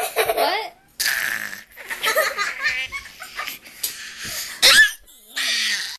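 Laughter in repeated short bursts, including a toddler's high-pitched giggling and breathy squeals, with brief pauses between bursts.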